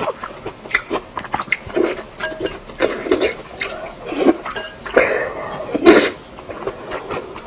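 Close-miked eating sounds: wet chewing and mouth noises in an irregular run of short clicks and bursts, the loudest about six seconds in.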